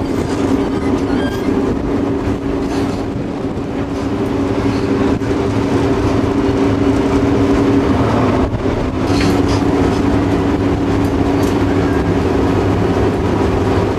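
Diesel engine of an ex-DR V100 diesel-hydraulic locomotive running under way, heard close from its end platform: a steady engine drone over the rumble of the moving train. The drone dips briefly about eight and a half seconds in, then resumes.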